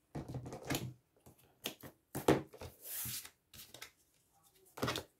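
Paper and a roll of double-sided tape being handled on a craft table: a string of short rustles, taps and scrapes, with a longer hissing rustle of about half a second around three seconds in.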